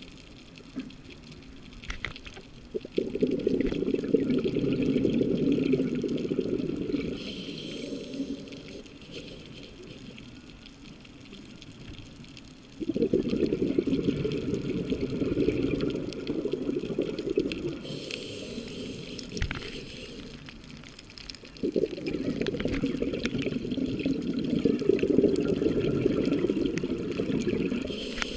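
Scuba regulator exhaust bubbles rushing past the underwater camera housing in three long bursts, one for each of the diver's exhalations, with quieter gaps between breaths. A few faint clicks now and then.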